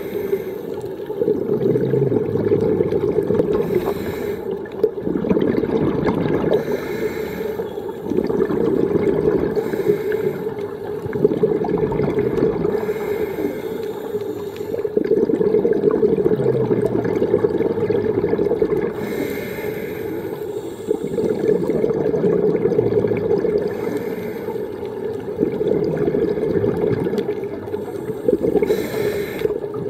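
Scuba diver breathing through a regulator underwater: a hissing inhale and a rush of gurgling exhaled bubbles, repeating in slow cycles a few seconds apart.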